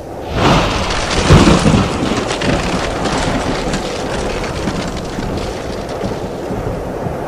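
Thunder-and-rain sound effect: a loud rumbling thunderclap about a second in, then a steady rain-like hiss with fine crackling.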